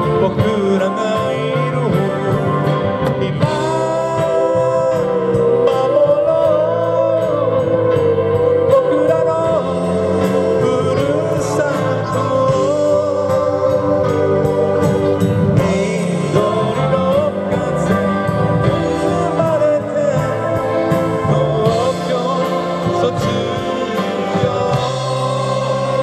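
A live band playing amplified music through a PA: electric guitars, drum kit and keyboard, with a wavering melodic lead line and a steady drum beat.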